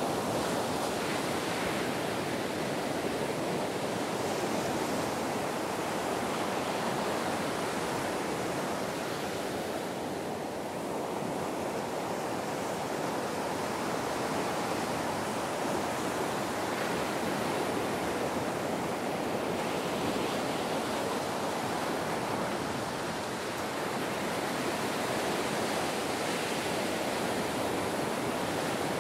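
Ocean surf on a beach: a steady rush of breaking and washing waves, easing slightly twice.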